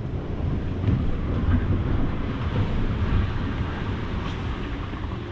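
Low, uneven rumble of wind and sea noise aboard a sailing catamaran under way, with a faint click about four seconds in.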